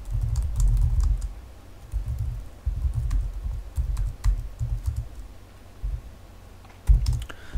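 Typing on a computer keyboard: quick runs of keystrokes, each click carrying a dull low thud, thinning out about halfway through, then one sharp keystroke near the end.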